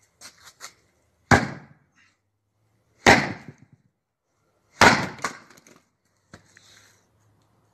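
Axe chopping wood: three sharp strikes, about a second and three quarters apart, each with a short cracking tail.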